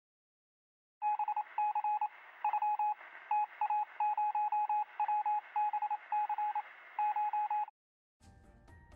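Electronic beeping at one steady pitch, in quick irregular runs of short and longer beeps over a light hiss, sounding thin as if through a phone line. It starts about a second in and stops abruptly near the end.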